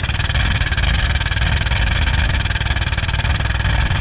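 Loud, steady industrial machinery noise from a nearby factory: a low rumble under a constant hiss with a brighter high band, unbroken throughout.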